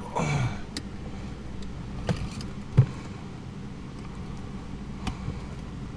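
A few scattered sharp clicks and knocks from plastic wiring connectors and cable being pushed together and handled at an accelerator pedal, the sharpest about three seconds in, over a steady low hum.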